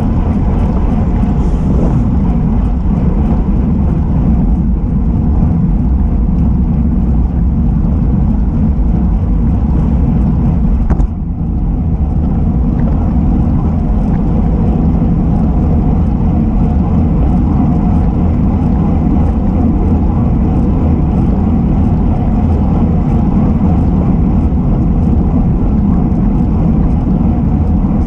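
Wind rushing over the microphone of a camera on a moving road bike, with tyre and road noise, a steady low rumble. It briefly drops out about eleven seconds in.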